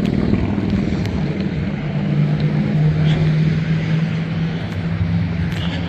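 Road traffic at an intersection: vehicle engines running, with a steady low engine drone through the second half.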